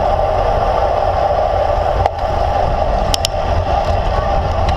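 Wind rushing over the microphone of a camera mounted on the handlebars of a moving road bike, with steady tyre and road noise underneath. There are two faint clicks a little after three seconds in.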